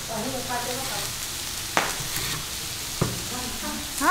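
A carrot being shredded on a wooden board grater: a steady rasp of the carrot scraping over the metal blades, with sharp knocks roughly once a second.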